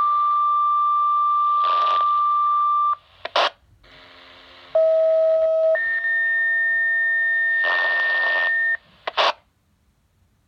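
Two-tone sequential fire department paging tones over a radio with hiss: a steady tone held about three seconds that ends in a short squelch crackle, then a second page, a lower tone for about a second stepping up to a higher tone held about three seconds, ending in another crackle. Each page alerts a different fire company.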